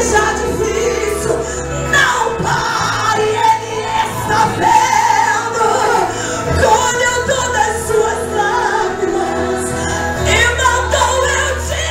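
A woman sings a gospel song live into a handheld microphone over instrumental accompaniment with held bass notes.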